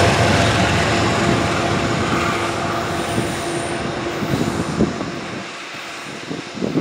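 Amtrak passenger train running past and away, its trailing diesel locomotive and cars rumbling on the rails and steadily fading, with a few wheel clicks over rail joints in the second half.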